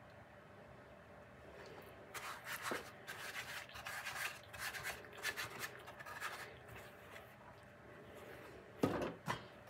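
Irregular scraping and rubbing of hands working sugar cookie dough and scraping the last of the flour and dough from a bowl, starting about two seconds in, with a couple of louder knocks near the end.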